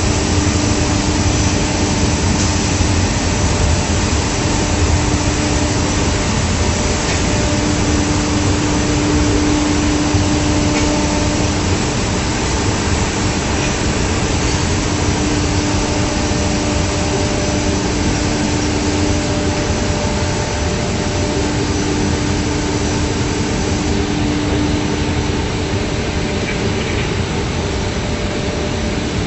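Industrial textile finishing machinery running steadily: a loud, dense machine noise with a hum that comes and goes.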